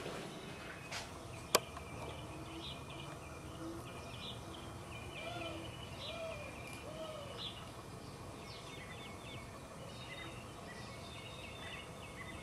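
Outdoor ambience with birds chirping and calling: scattered high chirps throughout, three short lower calls in a row in the middle, and a single sharp click about a second and a half in.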